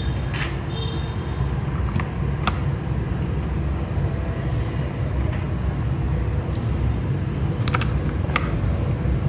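Keycaps being pressed onto mechanical keyboard switches: a few sharp, separate plastic clicks. Under them runs a steady low rumble, which is the loudest sound.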